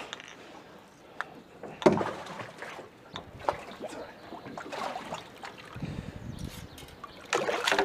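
Knocks and bumps on a small boat with water sloshing against it, the sharpest knock about two seconds in and another cluster near the end.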